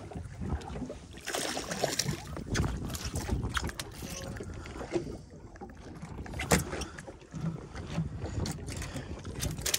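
Water lapping against a drifting fibreglass fishing boat's hull with wind on the microphone, under scattered sharp knocks and taps on the deck as a just-caught fish is handled; the loudest knock comes about six and a half seconds in.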